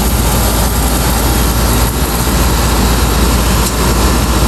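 Outdoor air-conditioner unit running with a steady, loud whir from its fan and a deep hum underneath.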